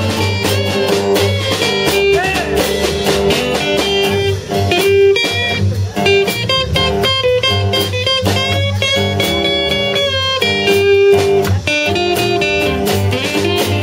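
Blues band playing an instrumental break: a lead guitar solo with bent notes over bass and drums.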